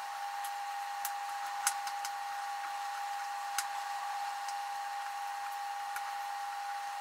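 A steady high-pitched whine over an even hiss, with a few sharp light clicks.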